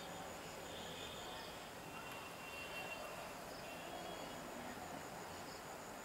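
Faint, steady insect chirring with no clear foreground sound.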